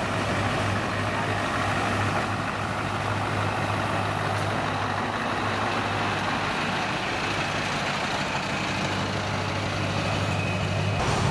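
Scania tractor unit's diesel engine running steadily as the truck drives slowly past at close range.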